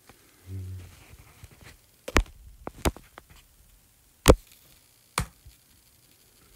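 Fingertip taps on a tablet's glass screen: four sharp taps with a few faint clicks between, the loudest about four seconds in. A brief low hum comes just before them, near the start.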